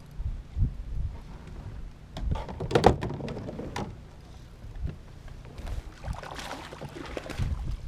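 Knocks and thumps on a fishing kayak, with two stretches of clattering handling noise, the first about two seconds in and the second past the middle.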